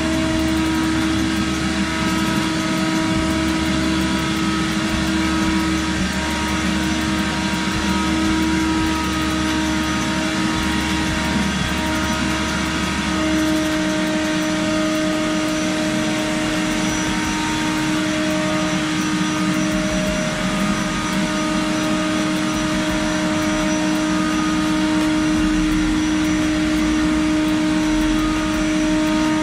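A motor in car wash equipment runs loud and steady, a constant-pitched whine over a broad hiss, with no change in speed.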